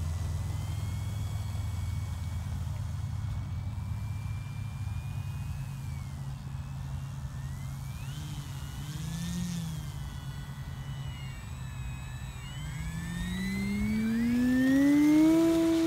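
Electric motor and propeller of an E-flite Carbon-Z Cessna 150 RC plane, faintly whining at low throttle while taxiing, then spooling up in a steadily rising pitch from about three seconds before the end as it goes to takeoff power, loudest near the end. A steady low hum runs underneath.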